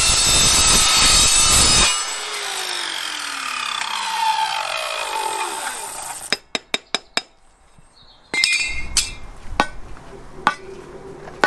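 A mitre saw cuts through aluminium box section with a loud, high metallic whine, which stops about two seconds in. The blade then spins down with a falling whine. Around six seconds there is a quick run of sharp clicks, and later a few light metal clinks as cut pieces are handled.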